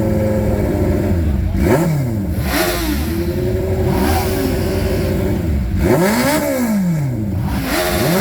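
A vehicle engine being revved: held at raised revs for the first second or so, then blipped up and down over and over, its pitch rising and falling with each rev.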